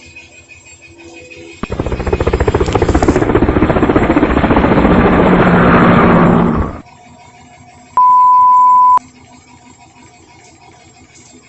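Small portable washing machine's motor starting abruptly and running loud and rough with a fast rattle for about five seconds, then cutting off suddenly. About a second later a steady electronic beep sounds for about a second.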